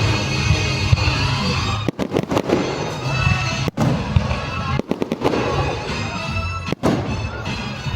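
Fireworks bursting and crackling in quick succession at a display, with loud music playing throughout.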